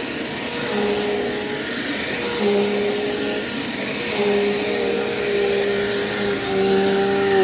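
Dirt Devil Quick Power vacuum cleaner running, with a steady high motor whine. A lower hum comes and goes in stretches of about a second as the vacuum works the floor, and wavers near the end.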